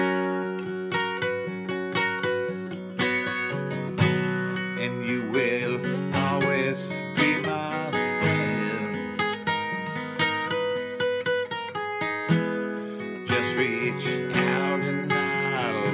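Acoustic guitar being strummed and picked in a steady rhythm, the chords ringing on between strokes.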